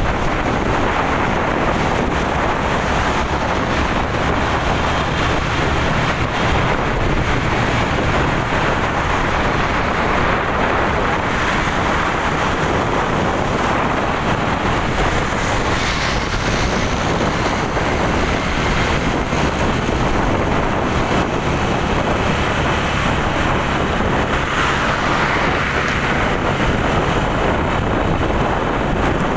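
Steady wind rushing over the microphone on top of the noise of a moving vehicle travelling along a road.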